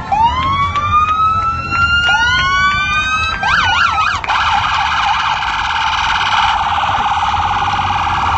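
Police motorcycle electronic sirens: two rising wails in the first few seconds, a short fast sweep up and down, then from about four seconds in a rapid steady warble.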